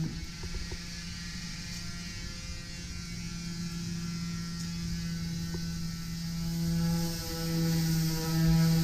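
Handheld electric power tool running steadily, a motor hum with a high hiss over it, growing louder about seven seconds in and again near the end.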